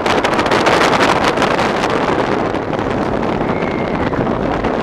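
Wind rushing over the microphone and an Arrow Dynamics steel roller coaster train rattling along its track at speed, with the clatter densest in the first second or so.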